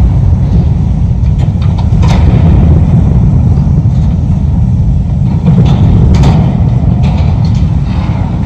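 High-reach Hitachi ZX1000K demolition excavator running with a loud, steady low rumble, with a few sharp knocks and bangs at intervals.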